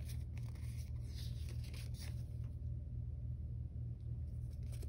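Paper sticker sheets being handled and slid against each other, soft rustles through the first couple of seconds and again near the end, over a steady low hum.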